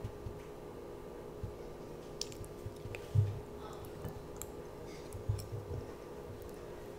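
A small child eating rice and chicken close to the microphone: soft chewing and mouth sounds, a few soft thumps and light clicks of a metal fork against a ceramic bowl, over a faint steady hum.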